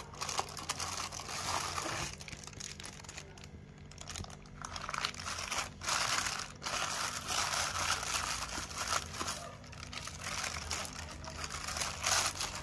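Packaging crinkling and rustling as it is handled and unwrapped, on and off, over a faint steady low hum.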